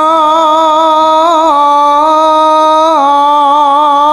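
A solo voice singing a slow Javanese bawa, unaccompanied, holding long notes with a wavering vibrato. The pitch steps down twice, about a second and a half in and again about three seconds in.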